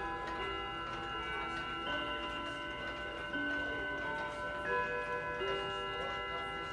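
Many antique pendulum clocks ticking together, with ringing chime or gong notes starting one after another and lingering over the ticking.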